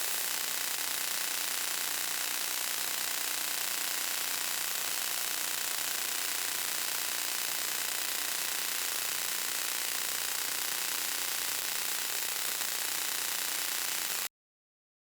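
Steady white noise: an even, unchanging hiss, brightest in the highs, that cuts off abruptly near the end.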